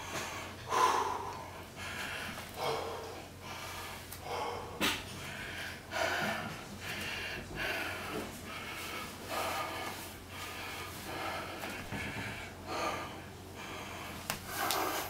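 A man breathing hard and loudly, about one breath a second, winded after a set of 100 bodyweight squats. A single sharp click comes about five seconds in.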